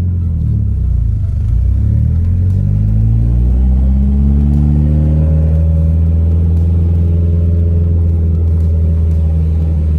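Car engine rising in revs over about five seconds, then held at a steady high pitch.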